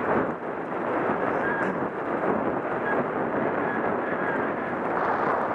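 Steady rushing noise of wind on the microphone and a bicycle rolling fast over packed snow while dogs pull it, with a few faint short squeaks.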